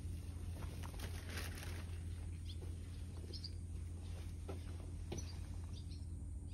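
Small birds chirping in short, high calls several times, over a steady low outdoor hum. A brief scratchy rustle comes a little over a second in.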